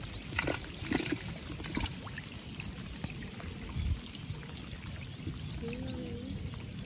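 Shallow muddy water in a flooded rice paddy splashing and trickling as hands move through it, with a few sharper splashes in the first four seconds over the steady patter of light rain on the water. A faint wavering call is heard about two-thirds of the way through.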